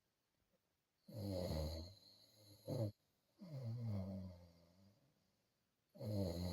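Snoring: a loud, rattling snore about a second in, a short snort just before three seconds, a second snore that fades away, and a third starting near the end.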